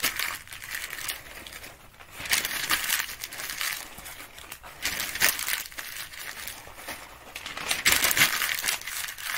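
Sheets of paper being crumpled up by hand, in several bursts of crinkling a few seconds apart.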